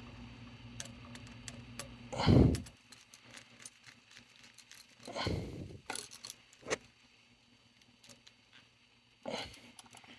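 Light metallic clicks and rattles of hand tools and wire being worked on an electrical outlet's terminal screws, scattered and irregular, with one heavier handling thump a couple of seconds in.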